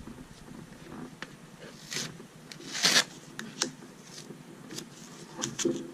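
Light handling sounds: a few soft clicks and brief rustling scrapes, the loudest a rustle about three seconds in.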